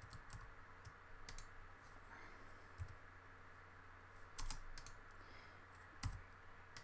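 Faint, irregular keystrokes and clicks on a computer keyboard, some coming in quick little clusters.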